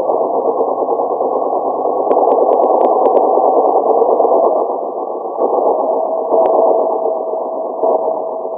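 Domestic sewing machine running steadily as it stitches a seam, sounding muffled and dull through a poor microphone. A few sharp clicks come between about two and three seconds in.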